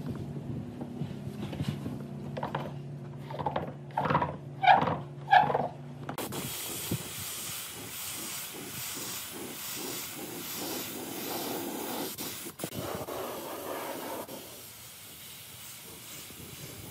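A few knocks over a steady low hum, as the round tabletop is fitted onto the pedestal. Then, about six seconds in, a compressed-air spray gun starts hissing steadily as it sprays finish onto the pine tabletop, growing quieter near the end.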